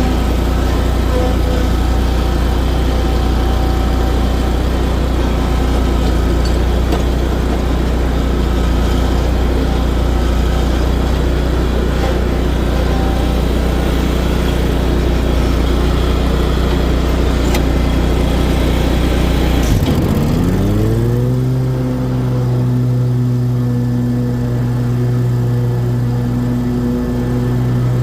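Toro commercial-grade lawnmower engine running steadily; about two-thirds of the way through, its pitch rises over about a second and settles into a higher steady note.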